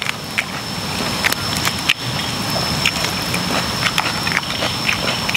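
Roasted chicken being pulled apart by hand: a steady run of small crackles and snaps from the crisp skin and meat tearing. A steady high-pitched whine runs underneath.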